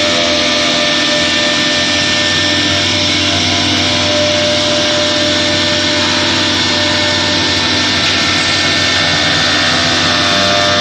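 SGMNC 1325 four-axis wood CNC router working, its swing spindle running at steady speed: a constant whine over a dense, unchanging hiss.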